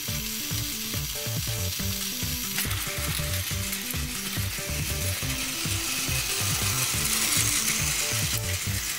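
Battery-powered Plarail toy trains running on plastic track: a steady whir and fast rattle of the small gear motors and wheels. It grows brighter about two and a half seconds in.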